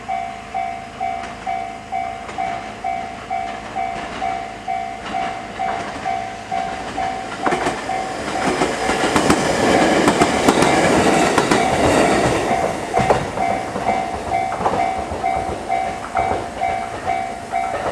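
Level crossing warning bell dinging steadily in a rapid repeating pattern while a JR West 223 series 5500 electric train passes through, starting about seven seconds in. The wheels clatter over the rail joints, and the passing noise is loudest for several seconds before fading.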